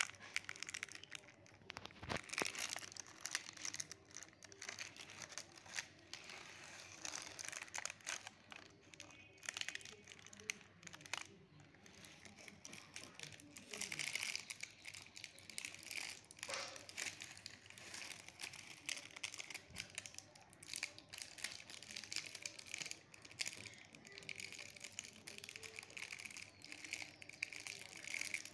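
A mesh net dragged through a pond mat of floating water hyacinth: irregular rustling and crackling of wet plants and stirred water.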